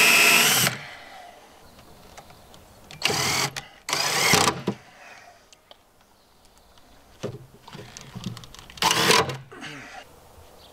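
Cordless drill running into a plywood cabinet panel in short bursts with a motor whine: one run stops just under a second in, two brief runs follow at about three and four seconds, and another comes about nine seconds in.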